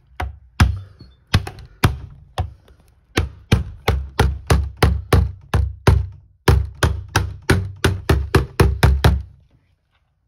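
Soft-faced mallet knocking a UPVC glazing bead back into place on a door panel, about two dozen sharp knocks: a few spaced taps at first, then a steady run of about three a second with a brief pause in the middle.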